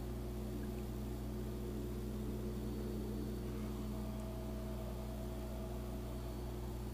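A steady low hum with a light hiss over it and no distinct events; a faint higher tone joins it for a couple of seconds past the middle.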